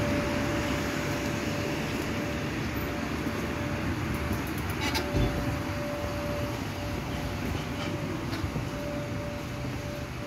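City street ambience: a steady low traffic rumble with a faint steady hum, and a short clatter about five seconds in.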